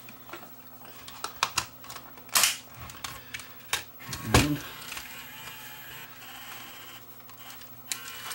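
Clicks and knocks from handling a Sony Hi8 camcorder's opened tape mechanism, with a louder thump about four seconds in as the cassette compartment is pressed shut. A steady whirr from the mechanism follows.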